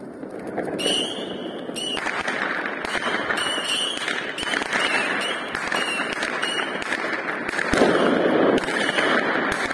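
Home-made fountain firework of ammonium nitrate, charcoal and magnesium shavings burning with a steady hiss and scattered crackle as it sprays sparks, growing briefly louder about eight seconds in.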